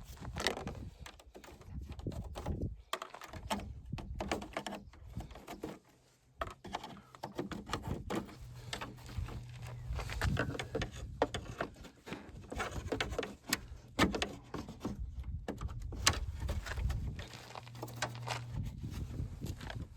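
Irregular clicks, taps and knocks of hand work on a car's front end: tools and plastic trim pieces being handled. A low steady hum comes in about halfway through.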